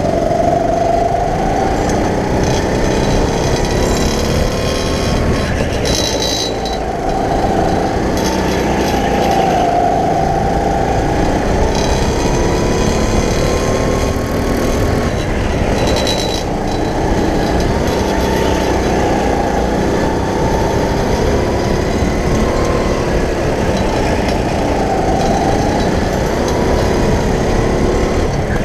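Go-kart motor running hard through a lap, its pitch rising and falling every second or two as the driver speeds up and slows for the corners, over a steady rumble from the kart.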